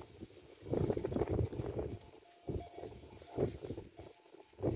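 Bells on a grazing goat flock clinking faintly, under a few loud irregular rustling bursts.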